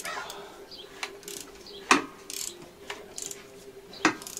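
A ratchet wrench clicks as the Mini Cooper S N14 engine is turned over by hand to check that the cam timing holds after the timing chain work. There are a few sharp clicks about a second apart, the loudest just before two seconds in.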